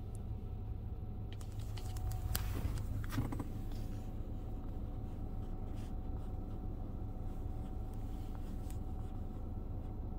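Laserwash G5 touchless car wash heard from inside the car: a steady low hum from the wash machinery, with scattered light ticks and taps of water on the car's body and glass, thickest about two to four seconds in.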